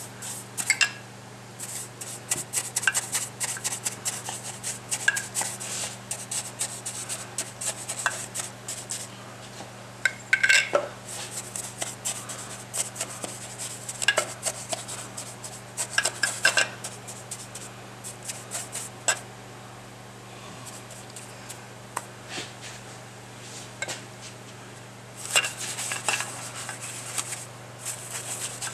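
Paintbrush dabbing and scrubbing soapy leak-test solution over the cast-iron Ford Model A engine block, a fast scratchy patter of bristles broken by ringing clinks as the brush's metal ferrule and the jar knock against the iron. It is a crack check: the soap is brushed on to show any bubbles leaking from the block. The brushing eases off for several seconds past the middle, then picks up again near the end.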